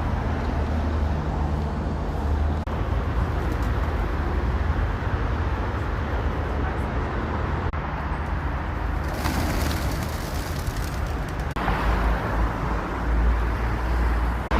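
Steady road traffic noise with a low rumble, and a louder hiss for about two seconds near the middle as a vehicle passes.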